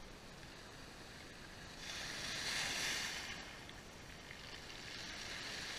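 Small waves washing up a pebble beach: a steady wash with two surges, one about two seconds in and another near the end.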